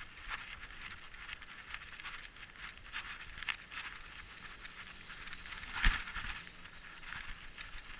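Bicycle clattering as it rides over bumpy grass, with a constant run of irregular small clicks and knocks from the frame and handlebars and tyres rolling on the turf. A heavier knock about six seconds in is the loudest moment.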